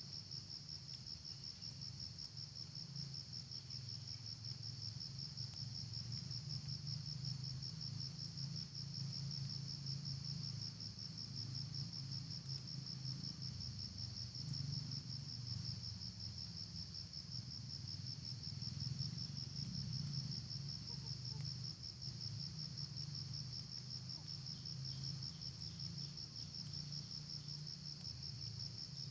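Steady, high-pitched insect trill made of fast, even pulses, running without a break over a low rumble.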